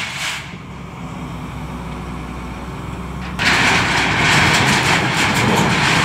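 Excavator's diesel engine running steadily under load. About three and a half seconds in, a loud harsh rushing, clattering noise sets in suddenly and continues.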